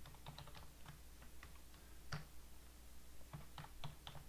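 Computer keyboard typing: a short run of quick keystrokes, a single key press about two seconds in, then another short run near the end.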